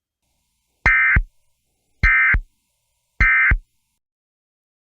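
Emergency Alert System end-of-message signal: three short, identical bursts of the screeching SAME digital data tone, about a second apart, marking the end of the alert.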